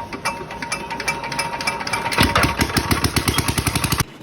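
Chinese 5 HP single-cylinder diesel engine running with a rapid, regular knocking beat that gets louder about two seconds in, then cuts off abruptly near the end.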